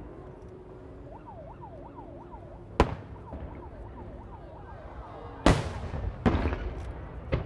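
Aerial fireworks shells bursting: one sharp bang about three seconds in, then three more near the end, the loudest about five and a half seconds in with a crackling tail, over a steady background rumble. Earlier, a faint, quickly repeating up-and-down whistle.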